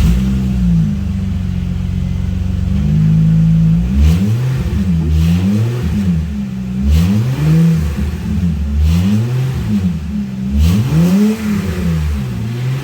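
2005 Acura MDX's V6 engine catching and idling loudly, then revved in repeated short blips, each rising and falling in pitch. The exhaust is blown out ahead of a muffler repair, so it sounds like a racer car with no exhaust.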